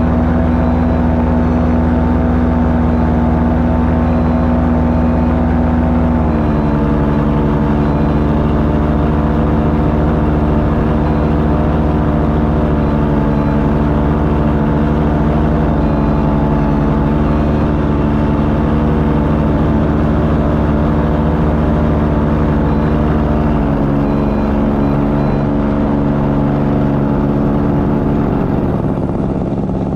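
Paramotor engine and propeller running steadily in flight, heard from the pilot's seat. The engine note drops a step about six seconds in and again near the end as the throttle is eased back.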